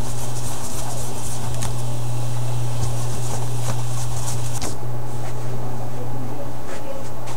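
A steady low hum, with light rubbing and scratching over the first four and a half seconds as dust is wiped off the open tablet before the new digitizer goes on.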